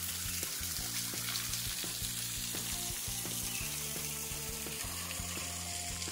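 Steady hiss of water running over boulders at a small rocky waterfall, under background music with a low bass line and a light regular beat.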